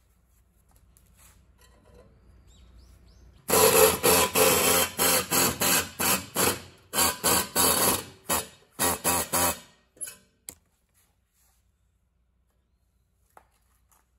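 Rapid hammer blows on sheet steel, about three a second for some seven seconds, each a sharp strike that rings briefly. This is hand-forming a steel body repair panel.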